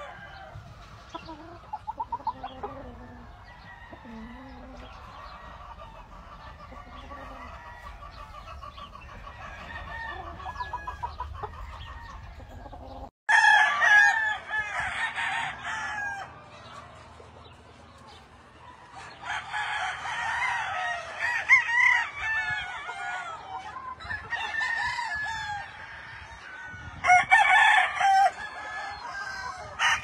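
Roosters crowing in repeated, overlapping bouts, with clucking between. The calls are faint over a low rumble for the first dozen seconds, then there is a sudden cut to loud, close crowing.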